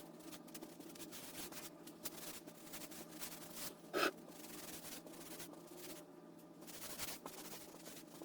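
Faint rubbing and scraping with light clicks, and one short, louder scuff about four seconds in.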